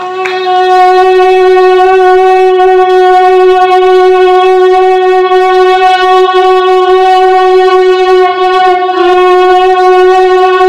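A man's vocal imitation of a train horn, amplified through a stage PA: one long, steady, loud horn-like tone, with a small step in pitch about nine seconds in.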